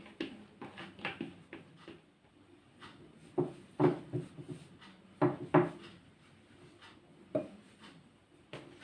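A kitchen utensil knocking and scraping against a dish as fish is spread over the salad's potato layer, with a cluster of sharp knocks in the middle and another about three-quarters of the way through.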